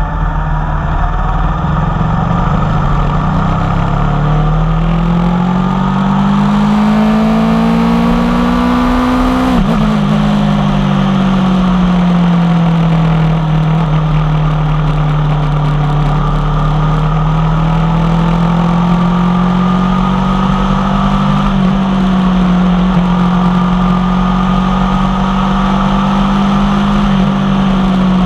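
Aprilia Tuono V4 1100 Factory's V4 engine through an unbaffled Tech 1 carbon exhaust, ridden on the road: it pulls up through the revs for several seconds, drops sharply at an upshift just under ten seconds in, then runs at a steady cruising note that rises and eases gently with the throttle.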